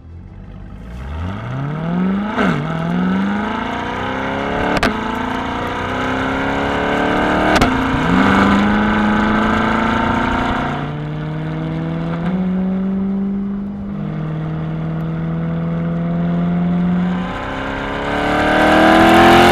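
Chevrolet C8 Corvette's V8 with its performance exhaust valves open in Track Mode, accelerating hard. The engine note climbs quickly and gives a sharp crack at each of three upshifts in the first eight seconds. It then runs at a steadier, lower pitch with a few small drops, and revs up again near the end.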